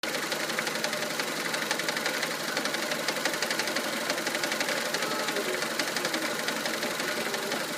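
Mitsubishi 4G93 four-cylinder engine running steadily with a fast, even knocking. The owner is unsure of the source but suspects the crankshaft pulley, which is visibly wobbling.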